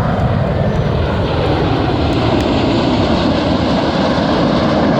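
Red Arrows BAE Hawk T1 jets flying over in formation: a steady, loud jet-engine noise with a deep rumble.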